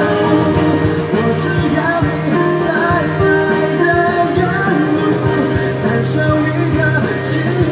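A live amplified duo performing a Mandarin pop song: male singing over acoustic guitar and electronic keyboard.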